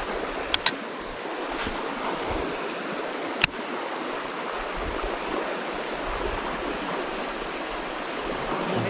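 Steady rush of river water flowing, with a few sharp clicks: two close together about half a second in and a louder one about three and a half seconds in.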